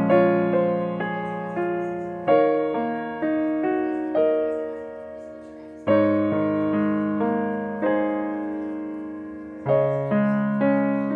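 Background piano music: a slow, gentle piano piece with chords struck every few seconds and left to die away between them.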